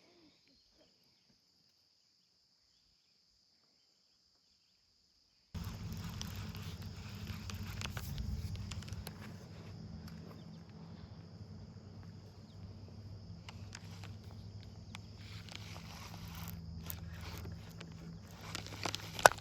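Dead silence for about five seconds, then outdoor ambience sets in abruptly: a steady high insect buzz over a low rumble, with scattered faint clicks and rustles.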